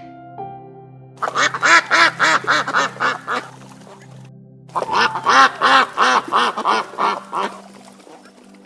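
A duck quacking in two rapid runs of about a dozen quacks each, a second or so apart, over soft background music.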